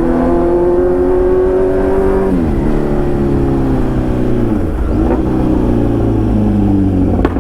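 Motorcycle engine running through an open exhaust without its dB killer, loud, with a steady note that falls about two and a half seconds in, dips and picks up again about five seconds in, and drops again near the end.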